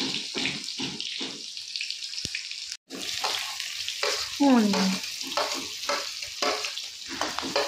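Hot oil sizzling in an aluminium kadhai with cumin and green chillies; past halfway, chopped onions are slid in off a steel plate and pushed in with a metal slotted spatula, with scraping and clinks over the steady sizzle.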